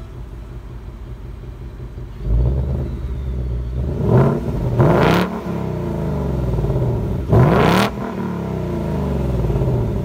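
2018 Ford Mustang GT's 5.0-litre V8 through its active exhaust in track (loud) mode, idling and growing louder about two seconds in. It is then blipped three times, about four, five and seven and a half seconds in, each rev rising sharply and dropping back to idle.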